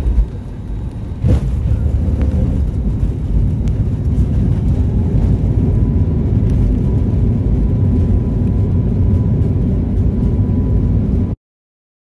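Airliner landing, heard from inside the cabin: two thuds in the first second and a half, then a loud steady rumble of the landing roll on the runway that cuts off suddenly near the end.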